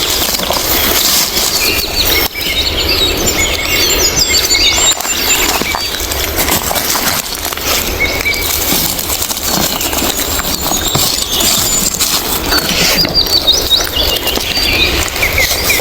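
Steady rustling and crunching of footsteps and hands moving through forest leaf litter and undergrowth, with small birds chirping in high, quick notes near the start and again near the end.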